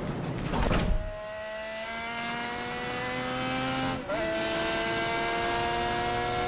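BRM P160 Formula One car's V12 engine at high revs, its note climbing steadily, with a brief drop as it shifts up about four seconds in before climbing again. A loud rushing burst comes just before a second in.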